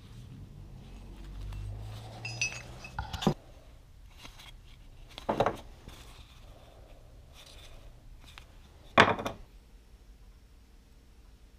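Steel tomahawk heads being handled, with a few sharp metallic clinks and knocks as they touch each other or the table; the loudest knock comes about nine seconds in.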